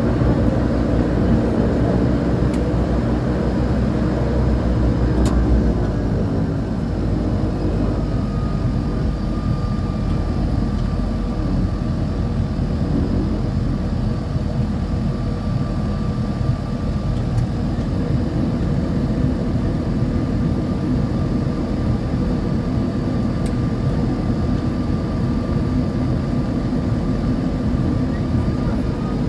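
Pratt & Whitney PT6A turboprop engine and propeller of a DHC-6 Twin Otter running at low taxi power, a steady drone. About six seconds in the deepest rumble drops away, and from about eight seconds a steady high turbine whine holds over the drone.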